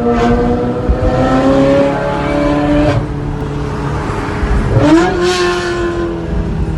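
Vehicle engine revving and echoing in a tunnel. Its pitch climbs steadily for about three seconds, drops, then rises sharply about five seconds in and holds.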